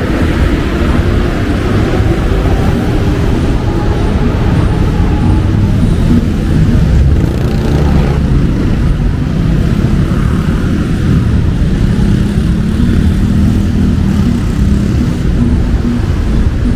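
Steady heavy road traffic on a busy city street: cars running past in a continuous rumble of engines and tyres.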